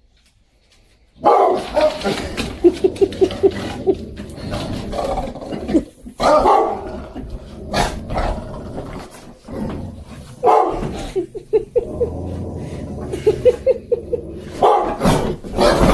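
Several dogs barking and growling, starting about a second in, in loud bursts with quick runs of short barks and a low growl underneath.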